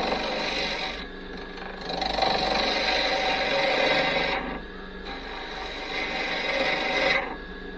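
A lathe tool cutting into spinning green cherry wood on a wood lathe, in three scraping passes, the last two a couple of seconds each, with the lathe running steadily between them.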